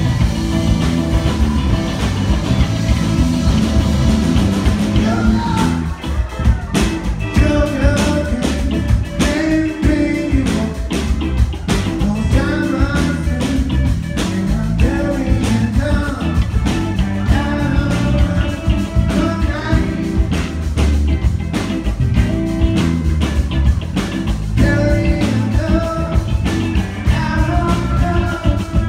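A live rock band playing through a club PA: electric guitars, bass and a drum kit. A lead vocal sings over the band from about six seconds in.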